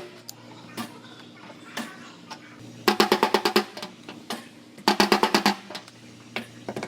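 Background music with a drum beat: two quick rolls of drum hits over pitched tones, about three seconds in and again about five seconds in, with a few single hits between.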